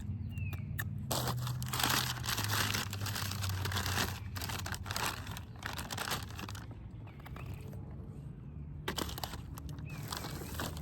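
Food packaging crinkling and rustling, in three bouts of handling.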